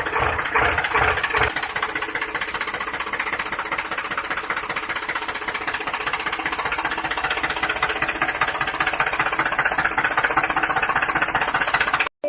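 Small tractor engine running steadily with a fast knocking beat, cutting off abruptly near the end.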